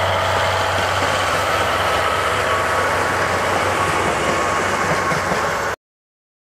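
Diesel locomotive engine, a JNR-type DE10 diesel-hydraulic, running steadily with a low hum and a whine as it passes with its passenger coaches. The sound stops suddenly near the end.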